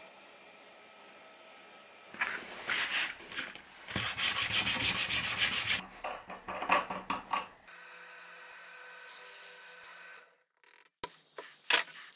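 Wood being rubbed by hand in rough strokes, like sanding or filing, with a fast, even run of strokes in the middle. Then a bench drill press motor runs steadily and faintly, followed by a few sharp clicks near the end.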